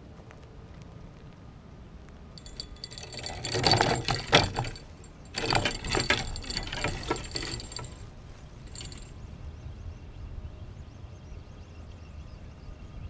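Fishing reel being cranked close by, a rattling, clicking run in two bursts of a few seconds each, with a short third burst near the end.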